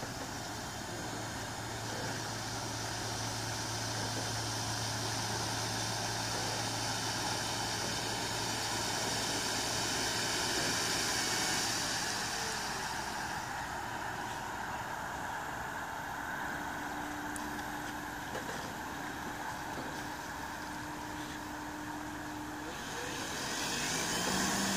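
Motor and propeller of a radio-controlled Pilatus model floatplane running as it taxis on the water. It grows louder until about halfway through, then eases off, with a short rising whine near the end.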